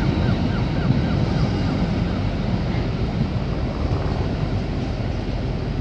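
Container freight train's wagons rolling past, a steady rumble of wheels on rails.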